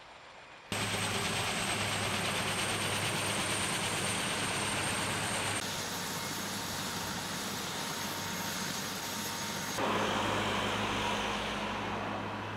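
Steady rushing engine noise of a firefighting helicopter, with a low hum underneath. It starts abruptly just under a second in and changes sharply twice, at about five and a half and ten seconds.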